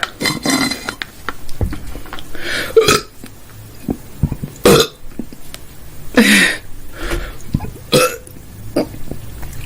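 A woman burping loudly several times in a row, about five belches a second or two apart, each short and rough.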